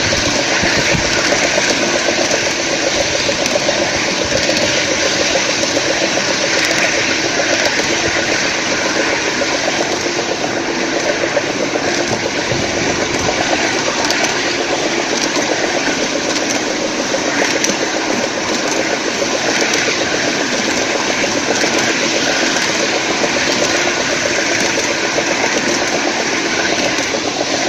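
5-inch-gauge model Class 37 diesel locomotive running steadily along the track, a continuous engine sound with no let-up.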